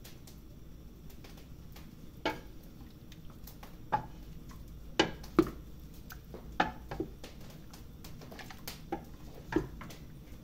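Wooden spoon stirring pieces of pork fat in a stainless steel pot, knocking against the pot about nine times at irregular intervals, loudest around the middle.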